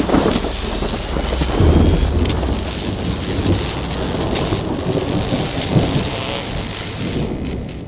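Thunder-and-lightning sound effect for an animated logo: crackling electric noise over a deep rumble that is strongest about two seconds in, stopping abruptly at the end.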